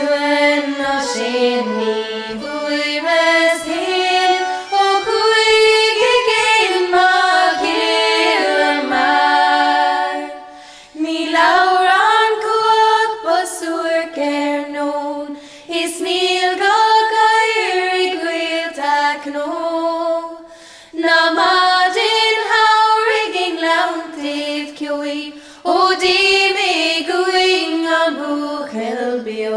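Three women singing a slow Irish-language air together, in long phrases separated by short breaks for breath.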